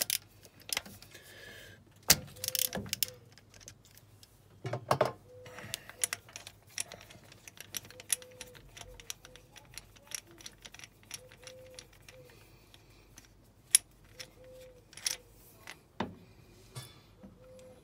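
Ratchet wrench with a spark plug socket clicking in irregular runs while a spark plug is unscrewed from the engine, with sharper metal clinks and knocks from the tools now and then.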